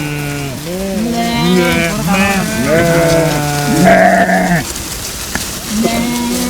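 A flock of sheep bleating, many calls overlapping one another, with a brief lull about five seconds in.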